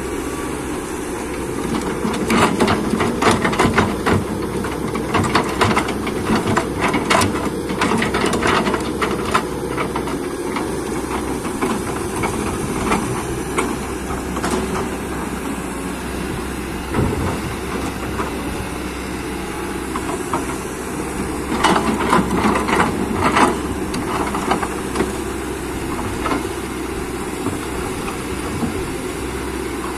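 Excavator's diesel engine running steadily under work, with bursts of clanking and knocking, first from about two to ten seconds in and again a little past twenty seconds in.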